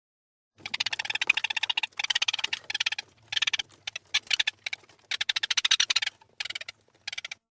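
Rat chirping: rapid trains of high, clicky chirps in several bouts with short breaks, starting about half a second in and stopping just before the end.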